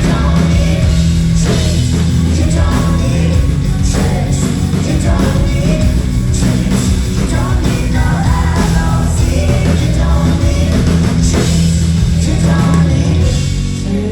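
Rock band playing live at full volume, with drums, guitars and singing.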